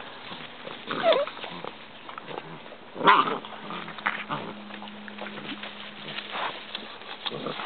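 Basset hound puppies play-fighting: two short yaps, about one and three seconds in, over scuffling and rustling in dry leaves and wood chips.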